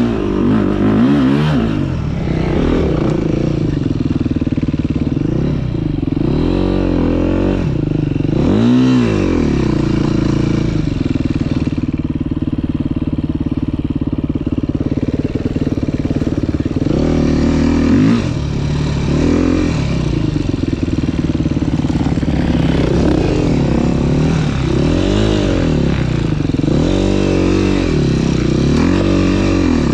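Dirt bike engine heard from on the bike, revving up and down in repeated short bursts as the rider works the throttle along a trail. A steadier, lower-revving stretch comes near the middle.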